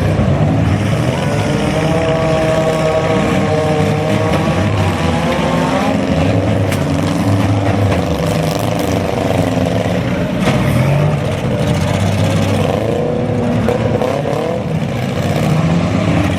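Several compact-car engines revving up and down together at a demolition derby, with a couple of sharp knocks about seven and ten seconds in.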